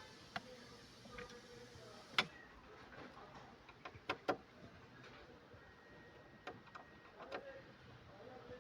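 Scattered sharp clicks and knocks of tools and metal parts being handled, the loudest about two seconds in, with a pair just after four seconds and a few more near the end.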